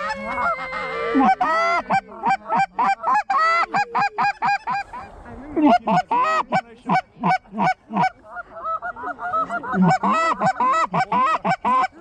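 Canada goose calls blown by hunters: rapid, overlapping honks and clucks, loud and close, with a short lull about five seconds in.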